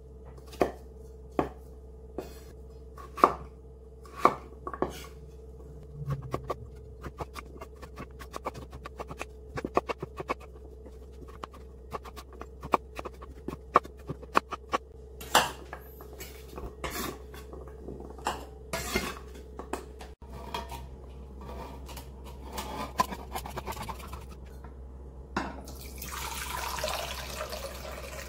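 Kitchen knife chopping squash into cubes on a wooden cutting board: a long run of quick, uneven knife strikes on the board. Near the end, canned pineapple juice pours into a glass measuring cup.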